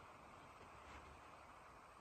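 Faint, steady hiss of light rain falling over trees, with a faint tick about a second in.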